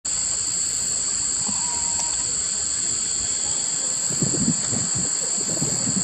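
Steady, high-pitched insect chorus, an unbroken drone with two shrill pitches, from a summer meadow of flowers. Muffled human voices come in over it about two-thirds of the way through.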